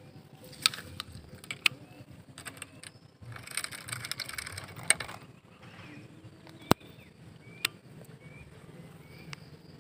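Baitcasting fishing reel handled for a cast: a few sharp clicks, then a whirring rush of about two seconds as the spool spins out line. Two more sharp clicks follow, with faint gear rattle as the reel is worked.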